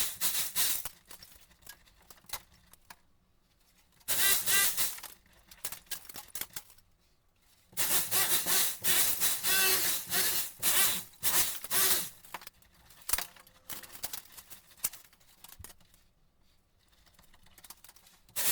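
Knocking, scraping and rattling as a hole is broken through a wall. It comes in two loud spells, a short one about four seconds in and a longer one from about eight to twelve seconds, with scattered knocks in between.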